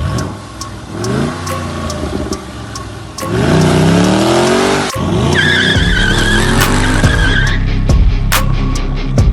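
Chevrolet SS's 6.2-litre V8 starting and revving: a sudden start, then rising revs, with a harder rev about three seconds in. About halfway through, music with a throbbing beat comes in over it.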